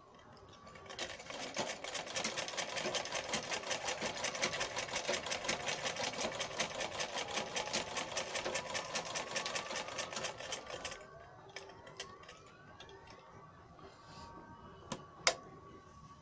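Domestic sewing machine stitching fabric: a rapid, even clatter of needle strokes that runs for about ten seconds and stops, followed near the end by a single sharp click.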